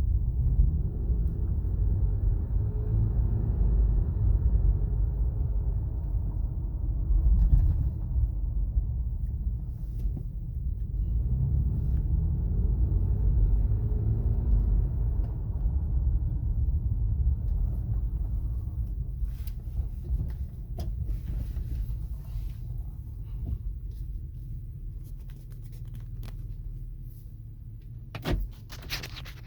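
A 2017 Acura MDX FWD's road and tyre rumble while driving, swelling twice with a faint whine that rises and falls with speed. The uploader suspects the whine comes from the front passenger side. The rumble dies down in the second half as the car slows, with scattered clicks and a single knock near the end.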